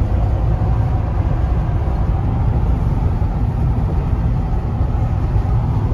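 Steady low road noise inside the cabin of a car moving at highway speed.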